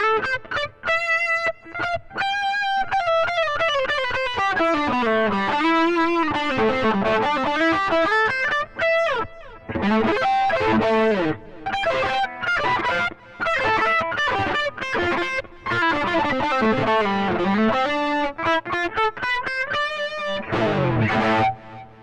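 Electric guitar played through a Mooer GE100 multi-effects pedal on its factory preset 68, 'Eighty Hi Gain', a high-gain overdrive lead tone. It plays a solo of melodic lines with string bends, vibrato on held notes and quick runs.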